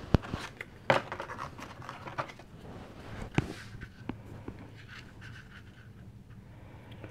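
Paper and card being handled on a cutting mat: soft rustling and scraping as a strip of white corrugated cardstock is laid over a card panel, with a few sharp taps and clicks, the clearest about a second in and at about three and a half seconds.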